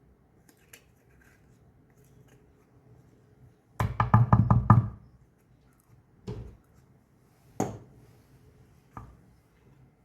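Kitchen knocking: a quick run of about six sharp knocks, then three single knocks spaced a little over a second apart.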